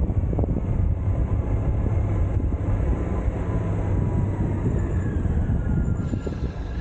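Suzuki Burgman 650 maxi-scooter's parallel-twin engine running steadily while riding.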